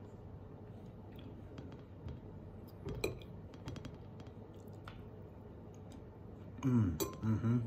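Faint clicks and taps of a metal knife and fork against a ceramic plate as a piece of soy-braised egg is cut and speared. Near the end comes a short wordless vocal sound from a man, the loudest moment.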